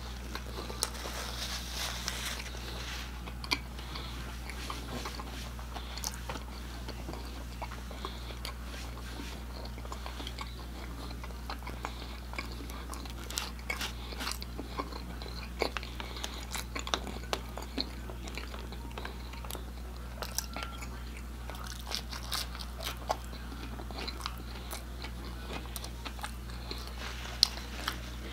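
Chewing and biting of Domino's pan pizza crust, with many small crunchy clicks and mouth sounds scattered throughout, over a steady low hum.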